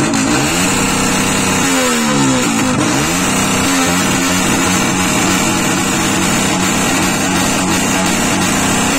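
Sport motorcycle's engine revved on the spot for an exhaust loudness measurement, its revs rising and falling a few times in the first three seconds, then held steady at high revs.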